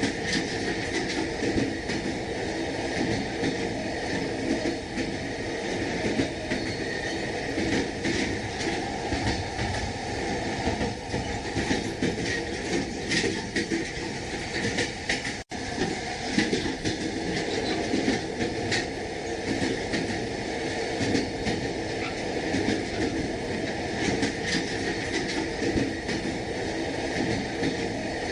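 Train wheels clattering rhythmically over rail joints, with the steady running rumble of a moving passenger train heard from inside the carriage. The sound cuts out for an instant about halfway through.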